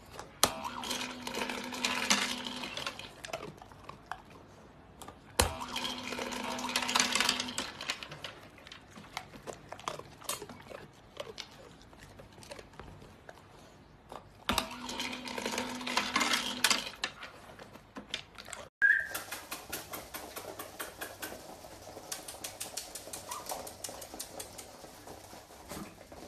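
A dog's paw presses the button of a treat dispenser three times. Each press starts with a click and sets off about two seconds of motor whirring with kibble rattling out. After another click, in the last third, comes a light, even patter of small paws on a wooden floor.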